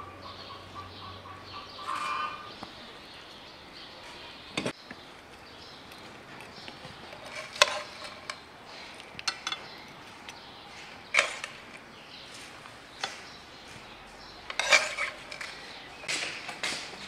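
Metal spoons clinking and scraping against plates and a pan as pilaf is served, with scattered sharp clinks of dishes on a table, about a dozen over the stretch.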